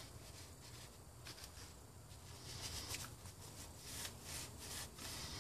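Faint, intermittent rubbing and scraping on a degreaser-soaked engine valve being cleaned, in short strokes that grow more frequent in the second half.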